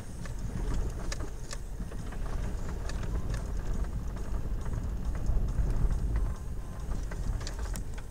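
Car driving slowly over a broken, potholed road, heard from inside the cabin: a steady low rumble of engine and tyres with scattered short knocks and rattles.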